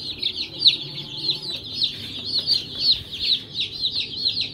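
A brood of baby chicks peeping: a continuous stream of high, overlapping peeps, several a second.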